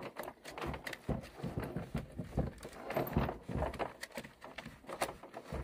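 Dog eating from a plastic food bowl: a run of irregular crunching chews and knocks against the bowl, a few a second.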